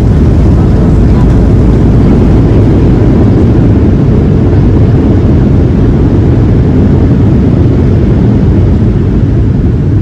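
Boeing 737-700 engine and airflow noise heard inside the cabin: a loud, steady low rumble with a hiss above it that eases slightly near the end.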